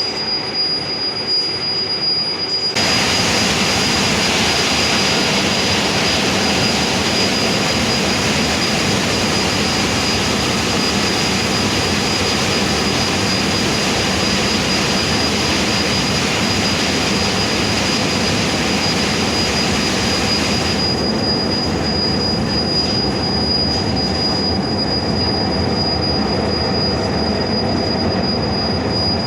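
Heavy machinery running: a steady, loud grinding noise with a constant high thin whine. It turns louder and brighter suddenly about three seconds in and loses its top edge suddenly about two-thirds of the way through.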